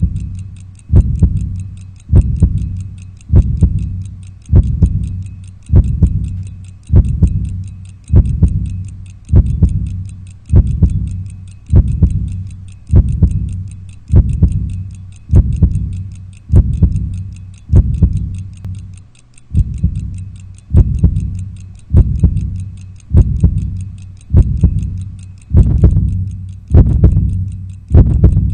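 A clock ticking as a film sound effect, a little under once a second. Each tick lands on a deep, booming thud that dies away before the next.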